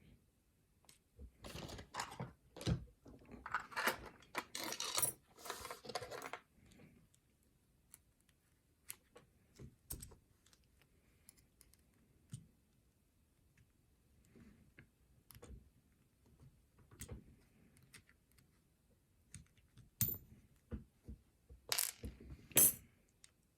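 Small metal clicks and rattles of a cheap pot-metal padlock and its key being handled: a dense flurry of clicking and jingling for the first several seconds, then scattered single clicks, and a few sharper clicks near the end.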